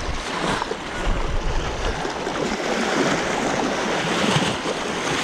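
Sea waves washing steadily against shoreline rocks, with low wind rumble on the microphone in the first two seconds.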